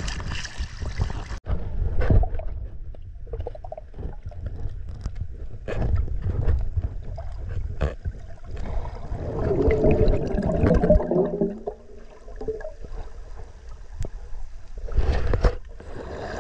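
Muffled water sound picked up by an action camera held underwater while snorkeling: a low rumble of moving water with scattered knocks, a denser gurgling stretch around the middle and a brief louder burst near the end.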